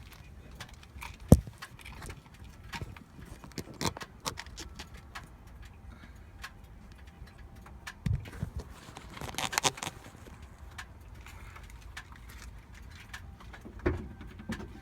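Keys jangling and scattered clicks and knocks as the ignition key of a 2012 Cummins diesel is cycled, with the sharpest click about a second in.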